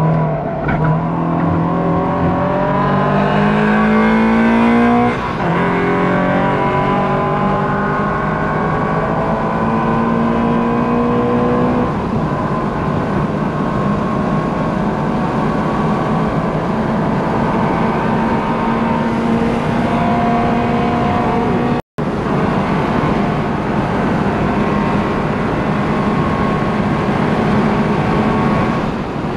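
Subaru BRZ's naturally aspirated flat-four, through a catless exhaust and unequal-length header, pulling hard under full throttle from inside the cabin. The pitch climbs, drops at an upshift about five seconds in, climbs again, then holds steady from about twelve seconds on.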